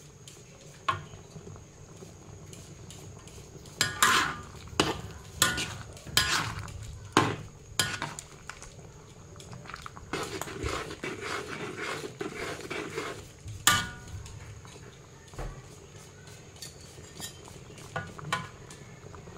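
A metal spatula stirring liquid gravy in a metal wok, knocking and scraping against the pan. There is a run of sharp clinks in the first half, a rougher stretch of stirring after that, and one more loud knock a little later.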